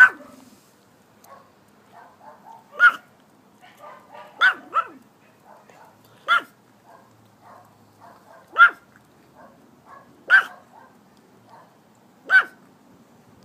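A dog barking in single sharp barks spaced about two seconds apart, eight in all, two of them in quick succession.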